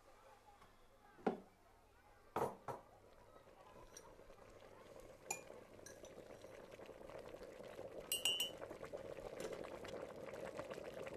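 A few hard knocks as ceramic mugs are taken from a cupboard and set down, then light clinks of a metal teaspoon against a glass coffee jar and the mugs, with a ringing clink about eight seconds in. Under them an electric kettle heats towards the boil, its rushing noise growing steadily louder through the second half.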